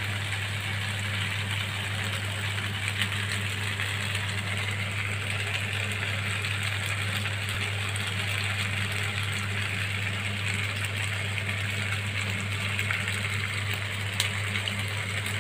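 A steady low motor hum, unchanging throughout, under a soft even sizzle from a pan of macaroni on a gas stove, with a few faint clicks.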